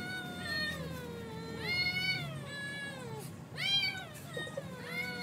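Two cats yowling at each other in a face-off: long, drawn-out, wavering calls that rise and fall and overlap, swelling louder about two seconds in and again near four seconds. These are the threat yowls of rival cats squaring up to fight.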